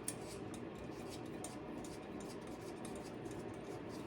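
Light metallic clicks and scratches of bicycle spokes being handled and laced through the hub and rim, a string of small irregular ticks over a steady low hum.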